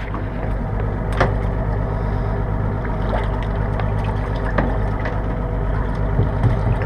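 Boat engine idling steadily, with a few sharp knocks about a second in and again after about four and a half seconds.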